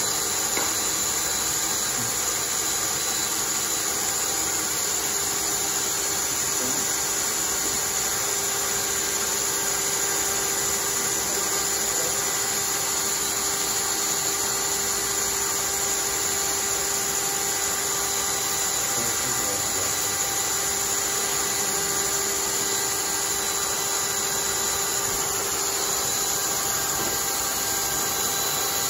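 Cordless drill running continuously at a steady speed, spinning a homemade wooden centrifuge rotor, with a steady motor whine.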